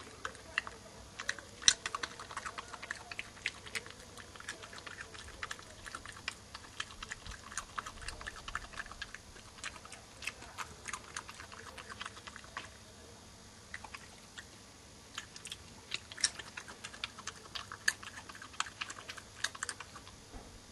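Badger crunching peanuts: irregular sharp crunches and clicks coming in bursts, with a short lull a little past the middle.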